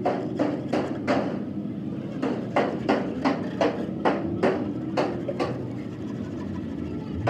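Hammer tapping repeatedly on a truck radiator during repair, about three strikes a second, pausing briefly after the first second and stopping about five and a half seconds in, over a steady low hum.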